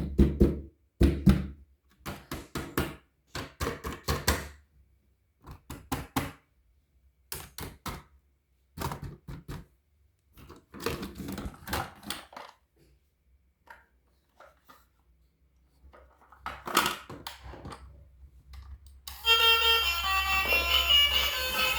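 Short runs of rapid, sharp clattering knocks, each run lasting under a second, repeating irregularly with quiet gaps between them. Music with steady sustained notes starts about three seconds before the end.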